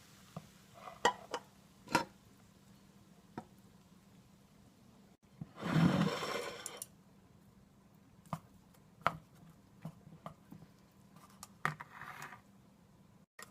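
Kitchen handling sounds: scattered light clicks and taps of utensils against dishes, with a louder, noisy rustle lasting a second or so about six seconds in.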